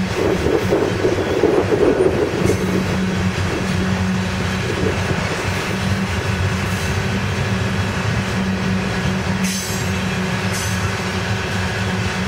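CSX freight train's open-top coal hopper cars rolling past close by: a steady rumble of steel wheels on rail with a low, even hum underneath.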